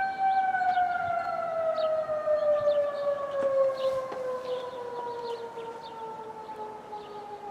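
Outdoor tornado warning siren sounding during a siren test: a steady tone that begins winding down about half a second in, its pitch sliding slowly lower and its level easing off.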